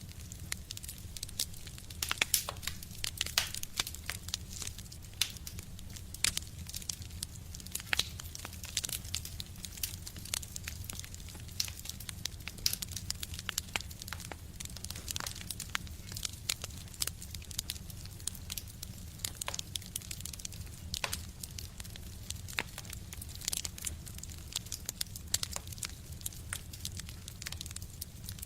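Wood fire burning in a stove, with dense irregular crackles and sharp pops over a steady low rumble.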